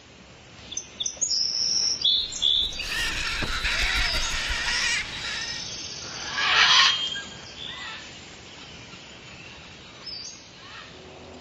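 Jungle ambience of birds chirping and calling, with short high chirps, a louder swell of mixed sound about three to five seconds in and a single loud burst a little before seven seconds.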